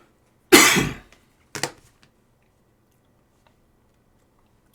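A person coughing: one loud cough about half a second in, then a shorter, fainter one about a second later.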